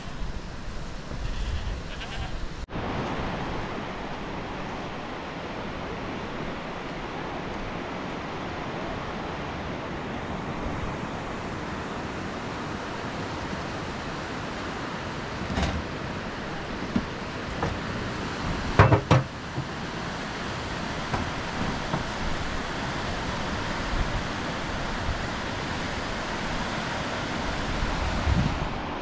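Goats bleating for the first couple of seconds, then a steady rush of water, broken by a few sharp knocks about two-thirds of the way through.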